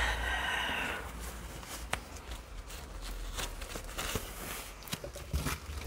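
Faint handling noise: light rustling and scattered small clicks as cloth gardening gloves are pulled on.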